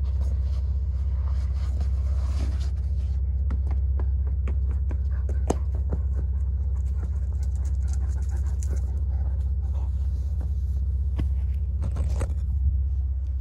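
Jeep TJ engine idling with a steady low rumble, with scattered scuffs and clicks of footsteps scraping down sandstone rock over it, the sharpest about five and a half seconds in and again near the end.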